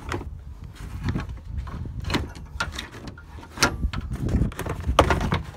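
Irregular plastic knocks, clicks and scrapes as a clipped-in plastic cover above the truck's radiator is handled and worked off, with the loudest hits about two, three and a half and five seconds in.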